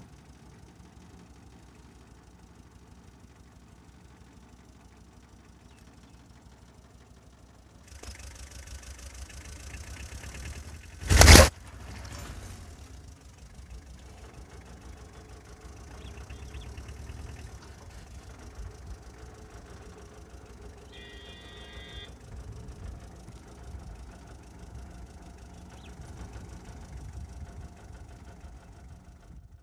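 A vehicle engine running steadily, with one loud, sharp bang about eleven seconds in.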